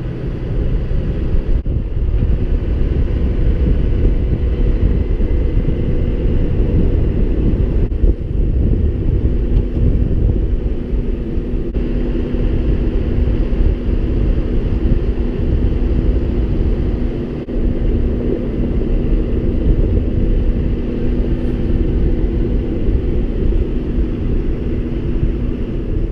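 Farm tractor engine running steadily, a loud low rumble, with a steady hum coming in about ten seconds in.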